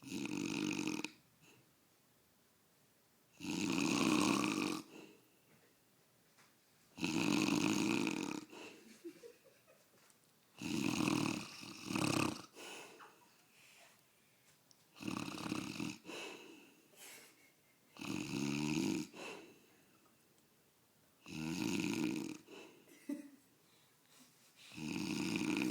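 A man snoring loudly in a slow, regular rhythm: about eight snores, each lasting a second or so and coming roughly every three and a half seconds, with quiet breaths between.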